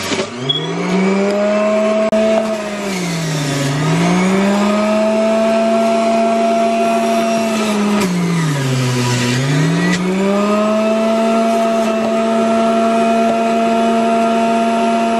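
Magic Bullet Mini Juicer's electric motor spinning up and running with a steady whine. Twice, about 3 and 9 seconds in, the pitch sags and then climbs back as produce is pushed down the feed chute and loads the motor.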